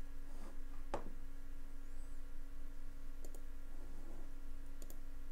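Computer mouse clicks: one sharp click about a second in and two quick double clicks later, over a steady background hum.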